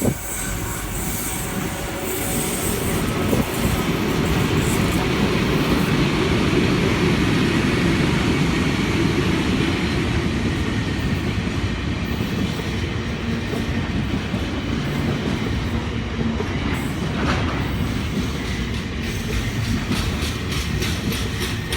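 Container freight train passing behind diesel locomotives: a long, steady rumble of wagons rolling over the track, with the rhythmic clatter of wheels over rail joints coming through near the end.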